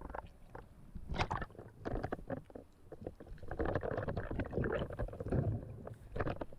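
Water churning and irregular knocking and clattering, muffled as if heard underwater, as a speared fish is hauled in on the spear shaft and struggles.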